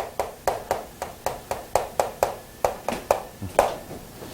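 A run of sharp taps at about four a second, keeping an even pace, stopping about three and a half seconds in.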